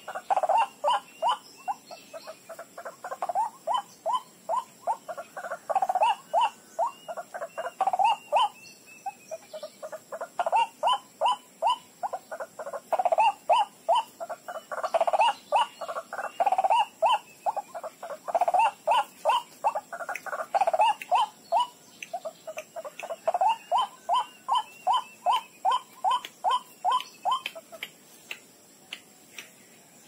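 White-breasted waterhen (ruak-ruak) calling: a fast, even run of short notes, about five a second, in long bouts broken by brief pauses.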